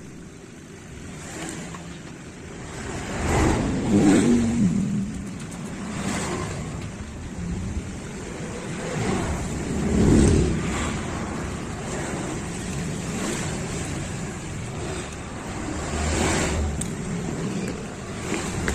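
Passing road traffic: engines swell and fade several times, loudest about four and ten seconds in, over a steady background of traffic noise.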